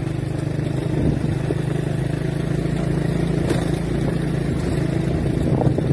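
ATV engine running at a steady pace as the quad is ridden along a gravel track.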